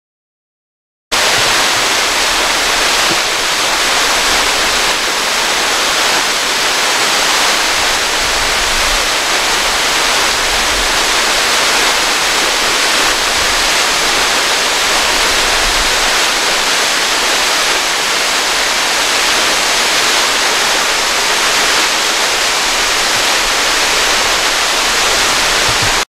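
Waterfall: a narrow cascade of water falling down a high rock face, a steady hiss of falling water that starts about a second in.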